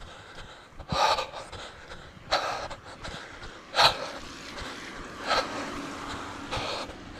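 A runner breathing hard, with five heavy breaths about a second and a half apart, close on the microphone.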